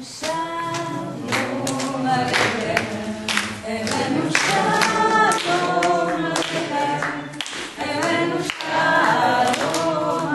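A group of people singing a song together, unaccompanied, with hand clapping along in time.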